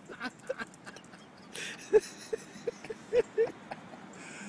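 A dog giving a quick run of about six short barks, starting about halfway through.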